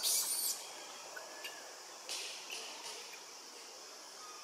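Long-tailed macaque giving short, harsh, high-pitched squeals: one right at the start and another about two seconds in, over a faint steady high hiss.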